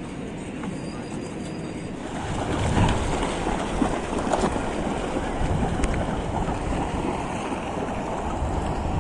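Sea waves washing onto the beach, with wind buffeting the microphone; the wash swells louder about two seconds in and stays up.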